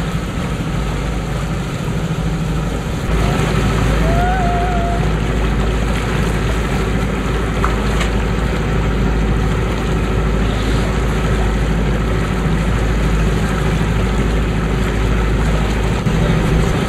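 Boat under way: the engine drones steadily while water rushes along the hull and wind buffets the microphone. The low rumble grows louder about three seconds in and stays even.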